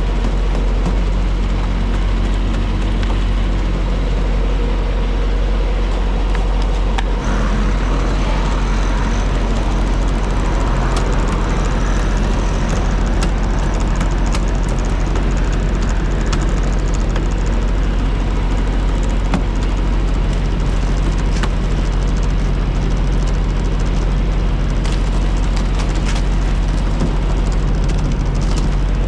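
Semi-truck's diesel engine running steadily with a low rumble, with scattered faint clicks over it.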